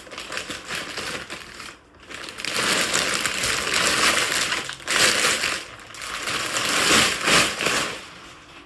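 A moon boot being fitted onto the foot: scratchy rasping and rustling of its straps and material in three long spells, with short pauses between.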